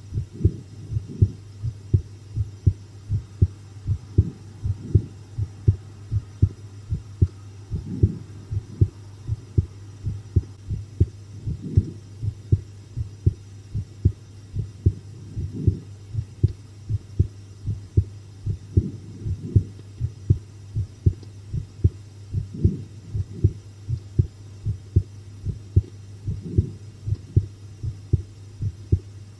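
Human heartbeat picked up close against the chest: regular low thumps over a steady low hum. By the uploader's own account it beats faster than usual from the fright of a scary video.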